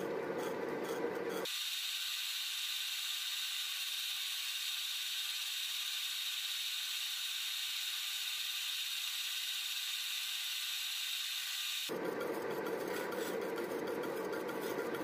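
Circular slitting saw on a lathe spindle cutting a brass bar lengthwise to split it into two bushing halves, a steady grinding hiss. The sound changes abruptly about a second and a half in and again near the end, between a thin high hiss and a fuller, lower cutting noise.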